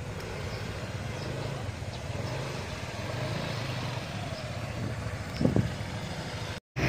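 Small motor scooters pulling away and riding past, a steady engine drone. A brief louder rising sound comes about five seconds in, and the sound cuts off suddenly near the end.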